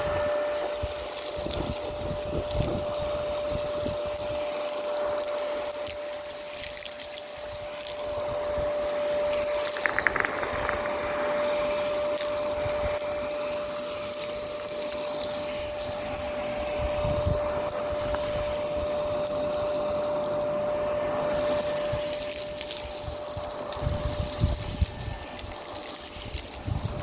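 Miele Complete C2 Tango EcoLine canister vacuum running steadily with a constant motor whine, its nozzle crackling as it sucks up grit and debris from the street surface. Low rumbles of wind on the microphone come and go, mostly near the end.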